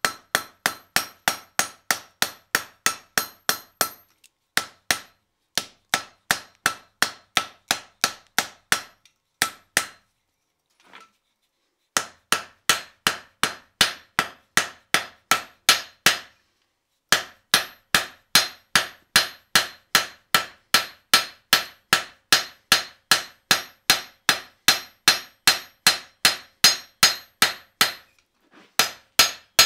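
Hand hammer striking red-hot leaf-spring steel on an anvil, about three blows a second in steady runs broken by a few short pauses, with the anvil ringing under each blow. The bar's end is being lightly upset and rounded over to form the chisel's striking face.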